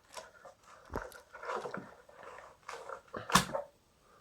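Small plastic toys being handled: light rustling and clattering, with two sharp clicks, one about a second in and a louder one near the end.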